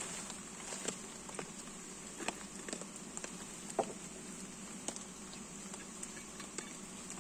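Light rain: scattered drops tapping irregularly close by over a steady hiss.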